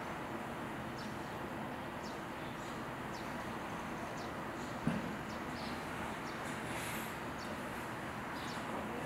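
Small birds chirping now and then over a steady background hum, with one short thump about five seconds in.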